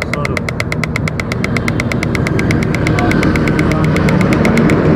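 Vehicle engine running on the road, with a rapid, even ticking of about ten a second over it that stops near the end.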